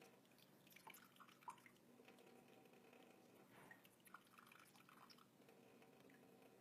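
Faint trickling and dripping of water poured through a small funnel into a plastic squeeze bottle, with a few light clicks.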